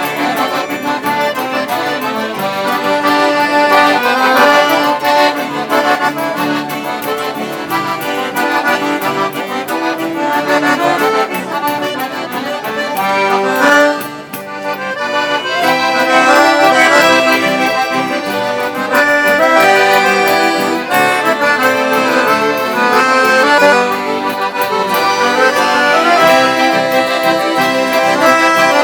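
Accordions playing traditional gaúcho music in the missioneira style, with several melodic lines at once. The music dips briefly about 14 seconds in, then picks up again.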